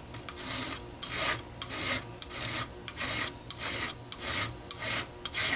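A metal hand file rasping against the steel teeth of a chainsaw chain, in repeated even strokes about twice a second.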